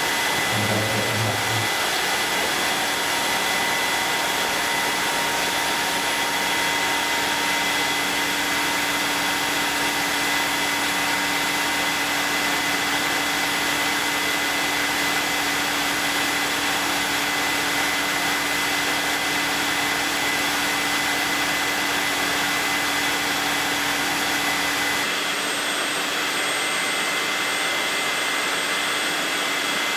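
Tineco Floor One S7 wet/dry vacuum mop running its self-cleaning cycle in the docking station: a steady motor whir with a constant hum, washing the roller brush. Its tone shifts abruptly about 25 seconds in.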